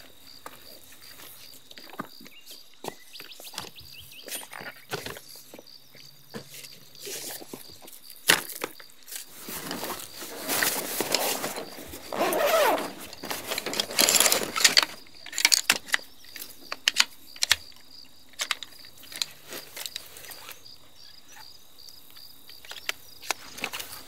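Camping gear being handled: scattered clicks and knocks of a folding camp chair's metal frame and fabric seat being fitted together. About ten seconds in comes a longer stretch of fabric rustling as a nylon gear bag is opened.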